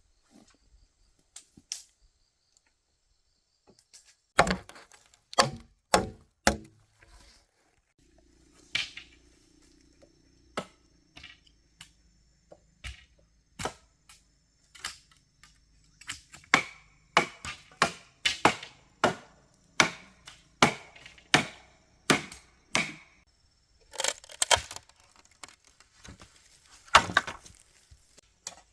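A blade chopping wood: sharp, irregular blows, about one to two a second, starting about four seconds in and coming faster in the second half.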